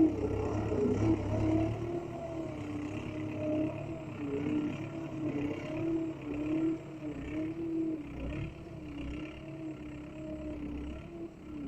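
Small motor running with a whine that wavers up and down in pitch, as under a changing load, over a low rumble.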